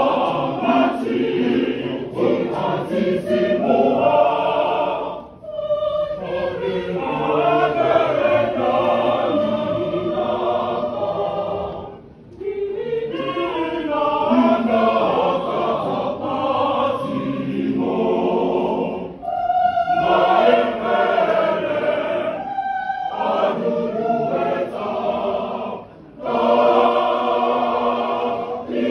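Church choir of men's and women's voices singing together, in sustained phrases with brief breaks between them.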